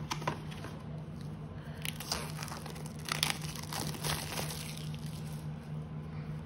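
Flash card packaging crinkling and rustling as the pack is opened, with a cluster of sharp crackles and clicks in the middle, over a steady low hum.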